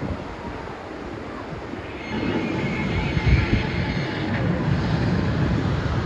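Mack Rides rocking-boat ride vehicle rumbling and rattling as it moves, getting louder about two seconds in.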